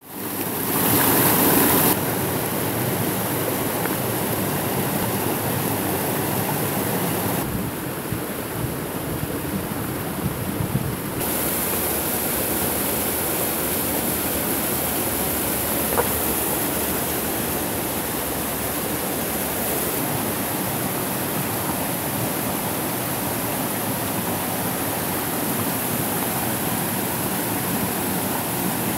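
Small waterfall splashing over rocks into a stream, a steady rush of water. It is loudest in the first couple of seconds, at close range to the falling water, then settles to an even, slightly softer rush.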